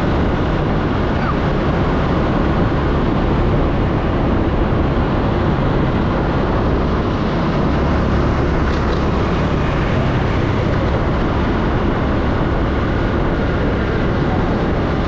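Steady rush of wind and road noise while riding a motorbike through city traffic, with the bike's engine and the surrounding motorbikes blended into a constant loud hum.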